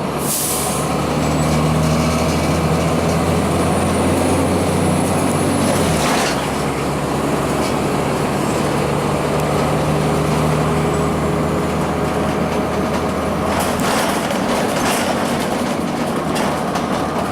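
Inside a 2002 Blue Bird CS transit bus under way: its Cummins ISC six-cylinder diesel runs steadily with cabin rattles, and the engine note drops about six seconds in. A short hiss comes right at the start.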